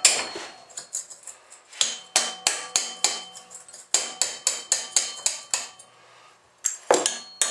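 Hammer striking a metal part of a small engine in quick runs of sharp hits, about four a second, each with a brief metallic ring. The hits stop for about a second near the end, then a few more follow.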